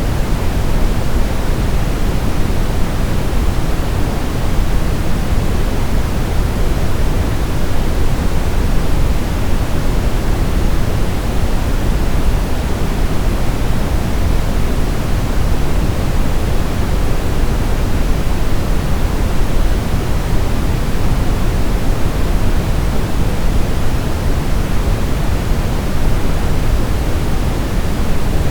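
Steady brown noise: a continuous, even rushing hiss weighted heavily toward the low end, with no changes or events.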